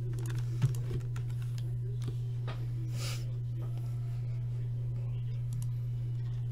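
Scattered clicks and taps from a computer keyboard and mouse over a steady low electrical hum, with one sharp click just over half a second in and a short rustle about three seconds in.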